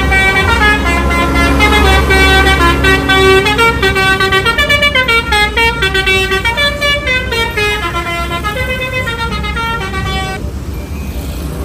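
A bus's Basuri 'telolet' multi-tone horn playing a fast, stepping melody over the low rumble of the engine, stopping about ten seconds in.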